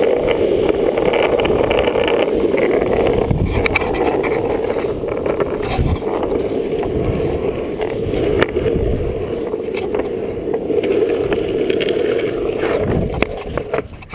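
Longboard wheels rolling fast over asphalt with the board pulled along by a dog: a steady, loud rolling rumble that drops away about a second before the end as the board slows.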